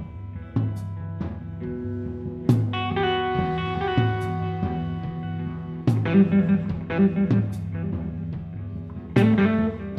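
A guitar-and-drums rock duo playing live: electric guitar chords and notes held and ringing over a drum kit, with snare and cymbal hits. Three heavy accents with crashing cymbals fall roughly evenly through the passage, and the guitar turns to short, choppy chords after the second.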